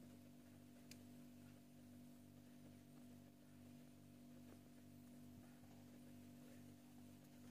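Near silence: a faint, steady low hum with a soft pulsing about three times a second, and one faint click about a second in.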